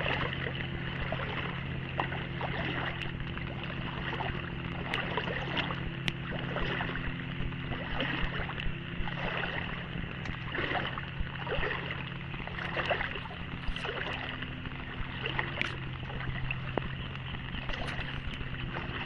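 Steady engine hum, with irregular splashing of water over it.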